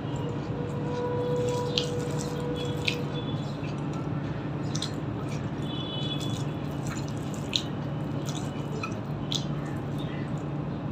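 Wet, sticky clicks and squelches of a hand mixing rice with curry on a steel plate and of mouth-eating, scattered irregularly over a steady low background hum.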